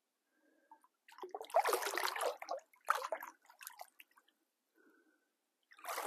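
Water splashing as a large common carp, released from an angler's hands, kicks its tail and swims off: a burst of splashing about a second in, then shorter splashes about three seconds in and near the end.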